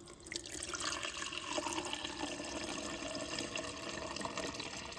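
GE refrigerator's water dispenser running, water hissing through the freshly re-cut supply line and into a cup, a steady hiss with a faint hum that starts just after the beginning. The noise is taken as a sign of air still in the line.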